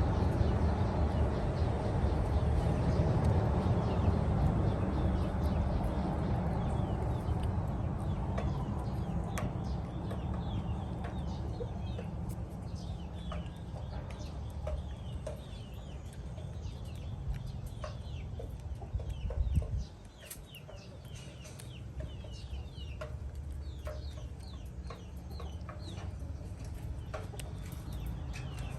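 Many short, high chirping calls, each falling in pitch, from birds or small animals, over a low rumble that cuts off about twenty seconds in.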